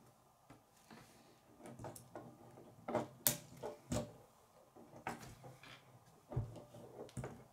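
K'nex plastic parts clicking and knocking as hands fit and adjust pieces on a small gear-and-axle model, in irregular sharp clicks, the loudest about three seconds in.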